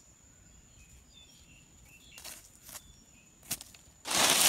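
A few faint rustles of a hand in dry leaves and soil, then about four seconds in a loud crunching scrape as dry leaves and earth are swept aside by hand. Faint bird chirps sound in the quiet before it.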